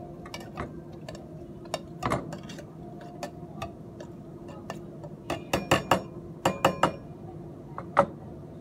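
Irregular knocks and clinks of a tool muddling ingredients inside a stainless steel cocktail shaker tin. The taps come in a quick ringing run about five to seven seconds in, with one sharper knock near the end.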